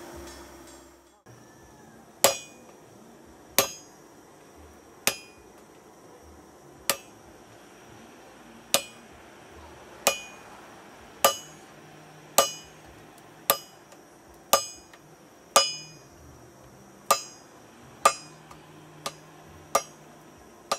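Hammer striking a wooden-handled, wire-bound hot cutter to split a red-hot steel bar on an anvil: about sixteen sharp metallic blows, roughly one a second, each with a short high ring. For the first second or so, before a cut, there is a steady hiss from the charcoal forge.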